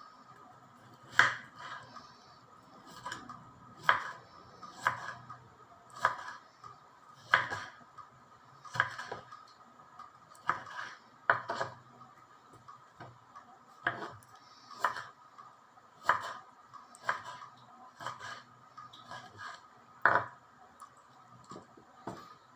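Knife chopping on a cutting board: single sharp strokes at an uneven pace, about one a second.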